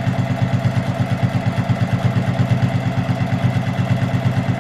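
Electric sewing machine running at a steady speed: a motor hum with the needle stitching in a fast, even rhythm as it sews a top stitch through quilted fabric along a zipper.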